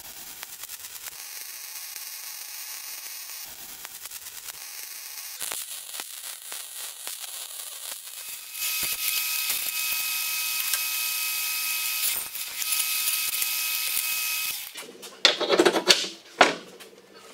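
MIG welding on steel strap iron: the arc crackles and hisses, louder and steadier for a long stretch in the middle. Near the end a cordless drill runs in a couple of short bursts.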